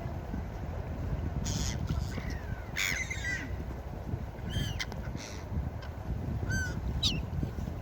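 Seagulls calling: short cries every second or so, several of them falling in pitch, over a steady low rumble.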